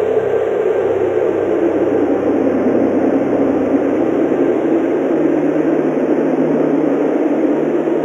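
Strong snowstorm wind blowing steadily, a dense, even rush with no gusty breaks. Soft sustained music tones sit underneath, and a new low note enters about five seconds in.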